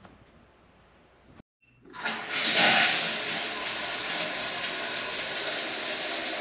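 Shower running: water from a wall showerhead rushes onto the tiles, starting with a surge about two seconds in and then going on steadily.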